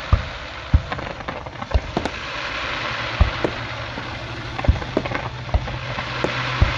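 Fireworks going off: sharp bangs at irregular intervals, roughly one a second, over a steady hiss of background noise.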